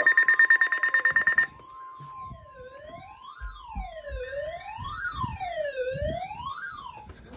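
Weather alert radio sounding its warning alarm. A rapid high beeping plays over a steady tone near 1 kHz, the NOAA warning alert tone. About a second and a half in, the beeping gives way to a wailing siren tone that rises and falls about every second and a half, while the steady tone fades out a couple of seconds later.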